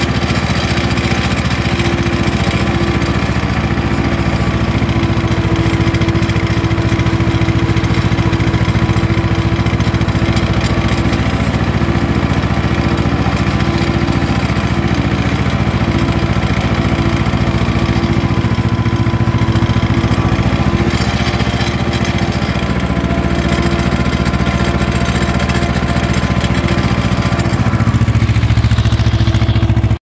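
Ursus C-330M tractor's two-cylinder diesel engine running steadily under load while pulling a field cultivator through the soil. It gets a little louder near the end.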